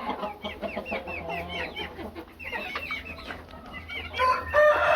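A barn flock of chickens calling: many short, quick clucks and chirps overlapping, then a rooster begins a long crow near the end.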